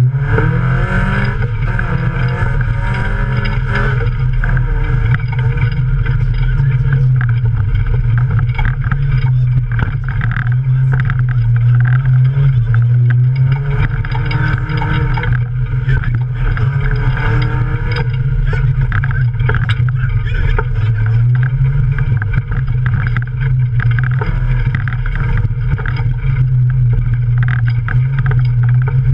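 Offroad race car's engine heard from inside the cabin, running hard under load and rising in pitch as it accelerates, notably about a second in and again about halfway through.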